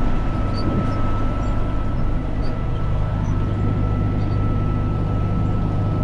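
New Holland 7740 tractor's diesel engine running steadily under load while tedding, heard from inside the cab, with a steady high whine over the engine drone.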